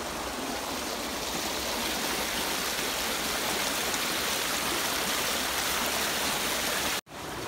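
Shallow stream water rushing over rocks in a riffle, a steady even rush. It cuts out abruptly for a moment near the end.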